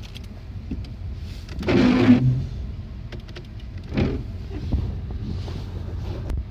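A car squeaking as it starts to move off, over the low rumble of the car: one loud creak about two seconds in and a shorter one about four seconds in.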